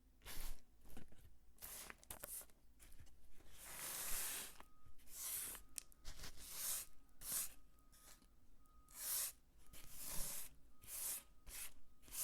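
Dry soap crunching and crackling as it is worked by hand: about a dozen short, crisp strokes of uneven length and loudness.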